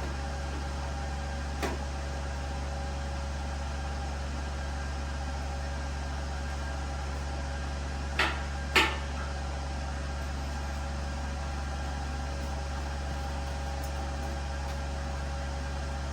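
Steady low workshop hum with three short knocks, one about a second and a half in and two close together about eight seconds in.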